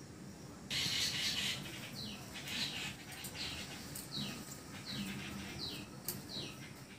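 A bird calling over and over, a short high chirp falling in pitch roughly every two-thirds of a second. A brief rushing, hissing noise comes about a second in.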